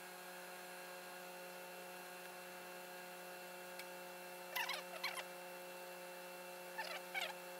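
Steady electrical hum made of several fixed tones. Twice, about halfway through and again near the end, a quick cluster of short, high, falling chirps cuts across it.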